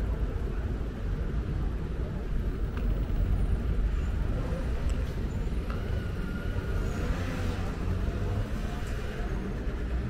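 Busy city street ambience: a steady low rumble with a faint murmur of people's voices.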